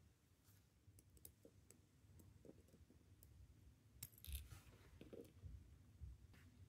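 Faint, scattered clicks of steel tweezers picking up and placing tiny watch parts, with a louder scrape about four seconds in.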